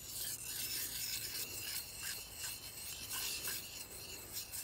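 O1 tool-steel knife blade being stroked over a diamond sharpening plate, a steady gritty scraping as the diamonds cut the steel.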